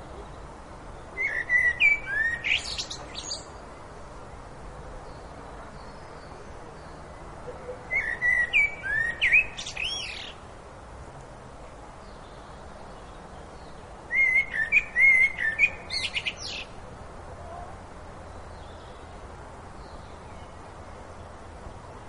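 A songbird singing three separate phrases, each a couple of seconds long, with pauses of several seconds between them, over a steady low background noise.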